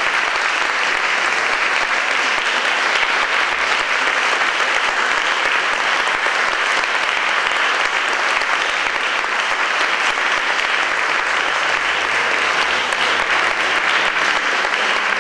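Concert hall audience applauding steadily: dense, even clapping with no letup.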